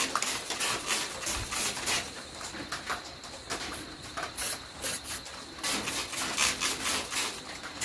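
Aerosol spray-paint can hissing in many short, irregular bursts, a few a second, dusting paint onto a steel truck cab.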